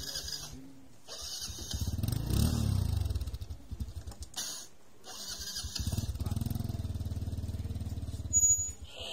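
A motorcycle engine: its revs rise and fall about two seconds in, then it runs steadily for a few seconds. A short, sharp, louder sound comes near the end.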